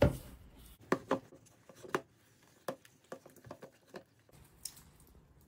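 Homemade glue slime with iron filings being kneaded by hand in a bowl: irregular short sticky squelches and clicks, after a dull bump at the start.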